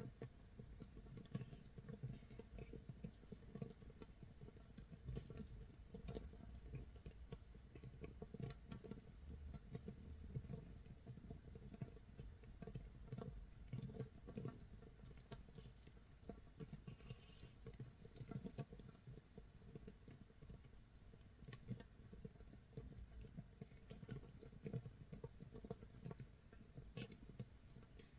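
Makgeolli starter mash fermenting in an earthenware crock, 24 hours in. It gives a faint, dense, irregular crackle of small bubbles popping, like light rain or rice crust toasting in a pan.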